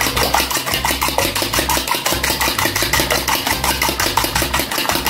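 Fork beating two eggs in a bowl: a rapid, steady clicking of the fork against the bowl, about eight or nine strokes a second.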